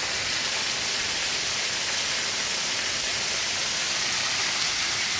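Waterfall running: a steady, even hiss of falling water.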